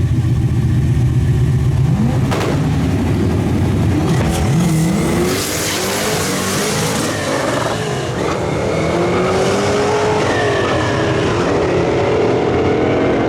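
Fox-body Mustang V8 racing at a drag strip: a steady low drone for about two seconds, then the engine revs up hard, its pitch sweeping up and falling back again and again. A hissing rush about five to seven seconds in.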